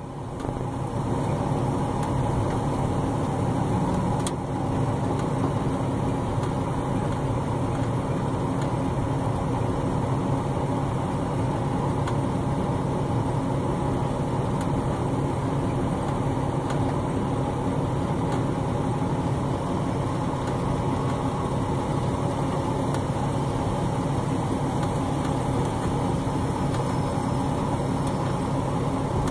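Truck engine idling steadily while the truck is towed slowly by a strap.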